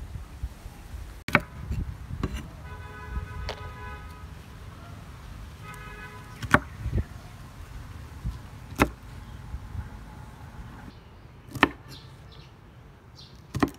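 Kitchen knife chopping through a bundle of long beans onto a wooden chopping board: about six sharp chops, a couple of seconds apart.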